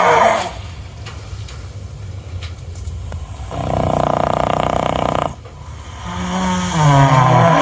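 A horse snoring in deep sleep. There is a rattling snore of nearly two seconds in the middle. A loud, deep groan that steps down in pitch starts about six seconds in, and the tail of another groan is heard at the very start.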